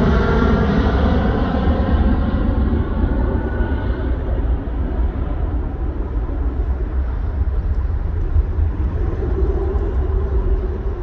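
Airbus A320's jet engines as the airliner climbs away after takeoff. A falling whine in the first couple of seconds sits over a low roar that slowly grows fainter and duller as the plane recedes.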